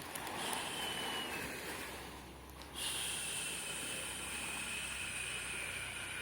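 Ocean waves washing on a shore, with a steady high-pitched tone that comes in under a second in and again, louder, about three seconds in.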